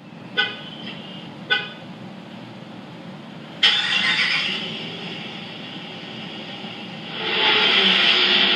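Two short car-horn toots about a second apart, then a sudden loud hiss that slowly fades, with louder steady noise coming in near the end.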